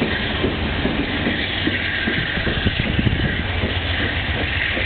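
Amtrak Lake Shore Limited passenger cars rolling past at speed: a steady, loud rumble of steel wheels on the rails, with scattered knocks from the wheels and trucks.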